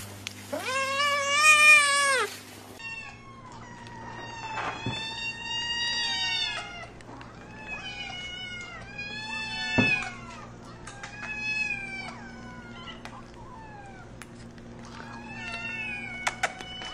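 A cat gives one loud, drawn-out meow that rises and falls. After a cut, a group of fluffy kittens meow repeatedly in short, high, overlapping cries, with a single knock near the middle.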